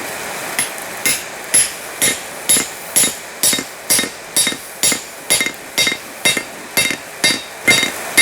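Hand hammer striking a hot steel sledge head on an anvil, about two blows a second in a steady rhythm, each blow ringing briefly at a few high pitches. The head is being forged into a flatter.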